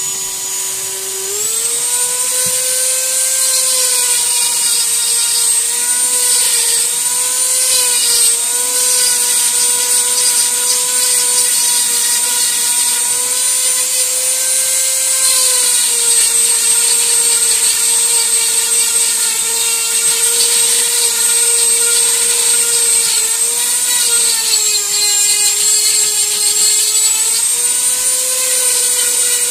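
Flexible-shaft rotary carving tool running at high speed with a steady whine, as the burr cuts into wood. The pitch climbs about a second and a half in, then sags a little now and then as the bit takes load.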